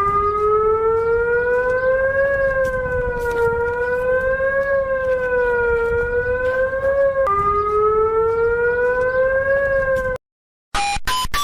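A siren sounding a chord of several tones at once, its pitch slowly rising and falling about every two and a half seconds, with a sudden drop and restart about seven seconds in. It cuts off about ten seconds in and is followed by a string of rapid, short electronic beeps.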